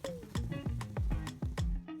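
Background instrumental music with a steady beat and low bass notes that slide downward.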